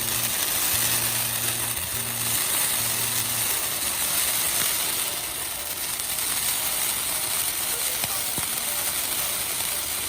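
Hand-held spark firework hissing steadily as it sprays sparks.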